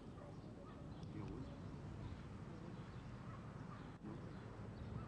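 Quiet outdoor background: a steady low rumble with faint, scattered bird chirps.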